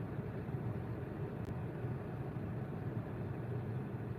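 Steady low hum of a running vehicle engine, with one faint click about a second and a half in.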